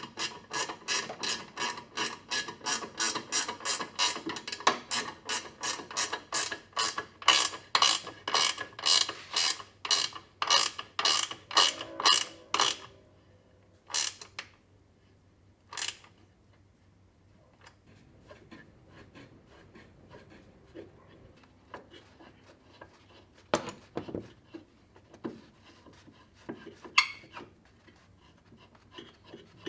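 Hand ratchet wrench clicking in quick, even strokes, about three or four clicks a second, as a bolt is turned. The clicking stops about twelve seconds in, leaving a few single clicks and small knocks.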